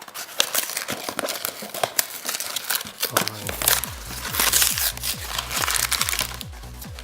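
Plastic-foil wrapper of a trading-card pack crinkling and tearing as it is opened by hand. A low, repeating bass line of background music comes in about halfway through.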